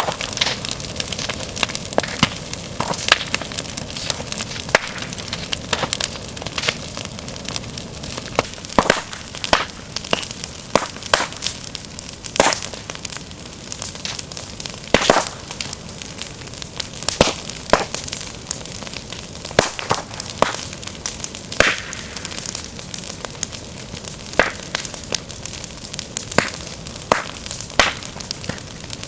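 Fire crackling: many irregular sharp pops and snaps over a steady hiss.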